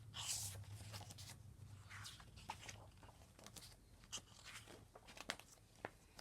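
Faint paper rustling with a short swish about half a second in and scattered light clicks afterwards, as the pages of a picture book are handled and turned.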